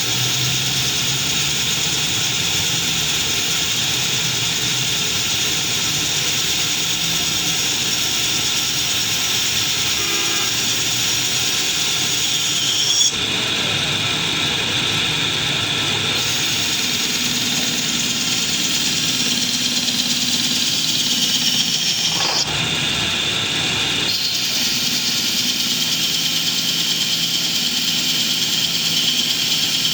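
Metal-turning lathe running steadily, a continuous machine hum under a hiss. The hiss drops away briefly twice, about a third and three-quarters of the way through.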